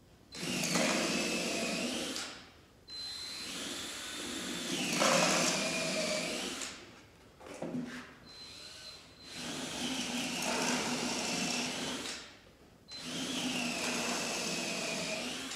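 Electric drill pre-drilling pilot holes into wooden hive-box boards, running in five separate bursts of a few seconds each. The motor pitch shifts within each run as the bit cuts into the wood.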